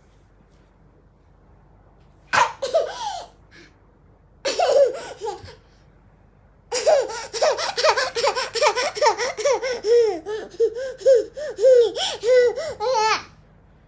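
A toddler laughing: two short bursts, then a long run of rapid, rhythmic giggles, several a second, ending on a rising squeal.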